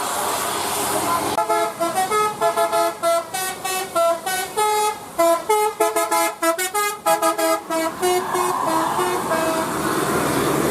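A tour bus's Basuri telolet horn, a multi-tone musical horn, playing a quick melody of short notes, starting after about a second and a half of steady engine and road noise; a few softer notes trail off near the end over the noise.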